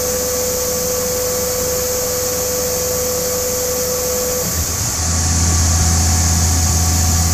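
Tormach CNC mill spindle driving an end mill through an aluminum block: a steady machine hum with a high hiss and a single steady tone. About four and a half seconds in the tone stops, and a louder, lower hum with a different tone takes over.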